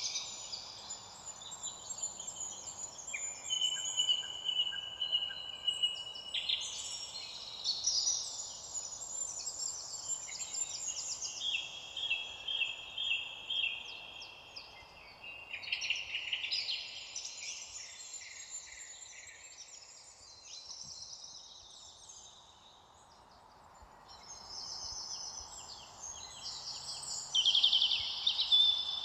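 Several songbirds singing at once, overlapping chirps and rapid trills, over a faint steady background hiss. The song thins out for a few seconds past the middle and grows louder again near the end.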